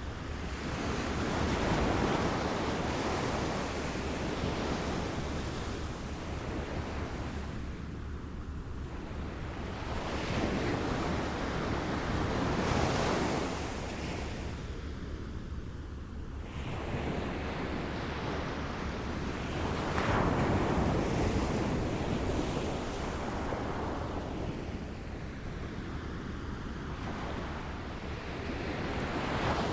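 Small waves lapping on a shore, the water noise swelling and easing in slow surges several seconds apart.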